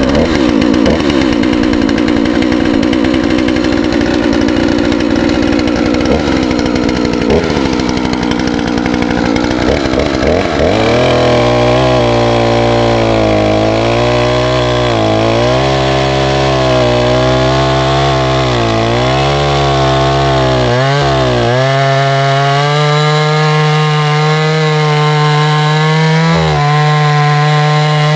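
Oleo-Mac 952 chainsaw, a 51.7 cc two-stroke, running at high revs. About ten seconds in, its note drops and wavers up and down as the 21LPX chain on the 45 cm bar cuts through a wood stump under load. Near the middle of the cut the pitch rises a little and holds steadier.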